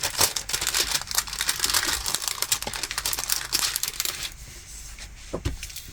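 Crinkling and crackling of a diamond painting canvas and its plastic cover film being flexed and worked flat by hand. The crinkling stops about four seconds in, leaving a few light ticks.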